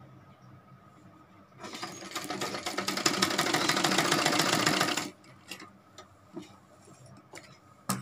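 Domestic sewing machine stitching a waistband seam. It starts about one and a half seconds in, speeds up with a fast, even run of stitches, and stops suddenly after about three and a half seconds. Faint clicks of fabric being handled follow.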